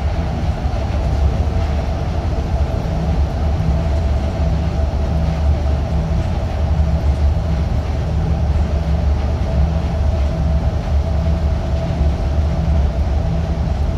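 Nippori-Toneri Liner rubber-tyred guideway car cruising at speed, heard from inside at the front: a steady low running rumble with a constant hum over it.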